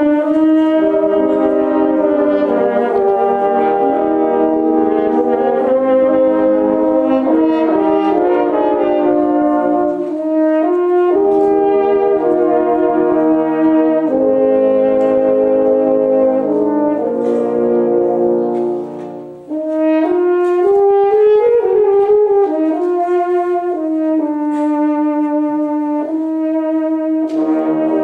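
French horn ensemble playing slow, held chords in several parts. The sound dips briefly about two-thirds of the way through, then a rising phrase comes in.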